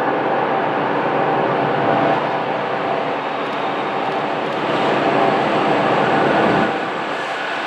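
Diesel locomotive ONT 2101 working hard up a grade with a heavy train of continuous welded rail, its engine running at high power as the train approaches. It grows louder about five seconds in, then drops back suddenly shortly before the end.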